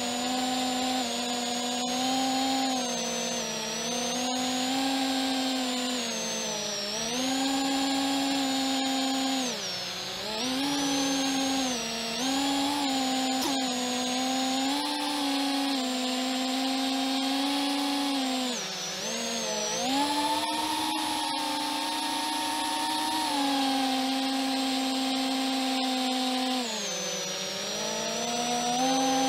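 FPV quadcopter's electric motors whining, heard from the onboard camera. The pitch rises and falls as the throttle is worked, with a few deep dips where the throttle is cut and then punched again.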